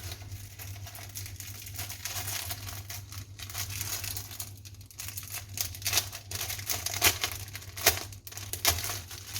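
Packaging crinkling and rustling as it is handled and pulled open, with a few sharper crackles near the end.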